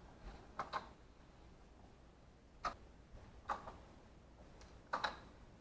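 Scattered faint clicks and taps, about half a dozen at uneven intervals, with a close pair near the start and another near the end.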